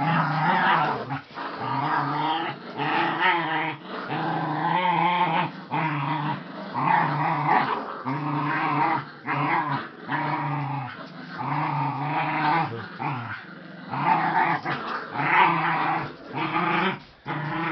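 Dog growling in play while tugging on a rope toy: a long run of low growls, each about a second, with short breaks between them.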